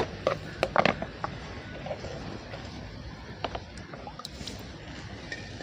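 A few light knocks in the first second or so, then a wood cooking fire crackling faintly now and then under an empty aluminium kadai, over a steady low hiss.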